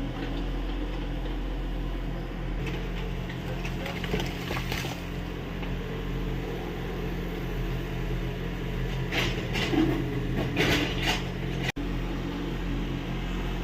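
Kubota U30 mini excavator's diesel engine running steadily as it digs. Bursts of scraping and metallic clanking from the bucket and arm come twice, about four seconds in and again from about nine to eleven seconds.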